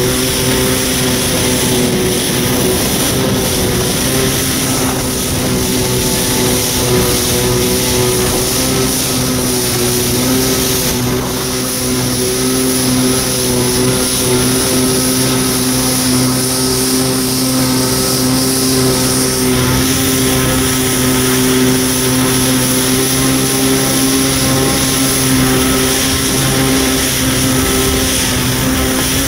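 1993 Kawasaki 650SX stand-up jet ski's two-stroke twin engine running at a steady cruising speed, holding one even pitch, over a steady hiss of water spray along the hull.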